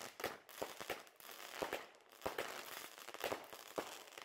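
Fireworks going off: irregular sharp bangs with crackling in between.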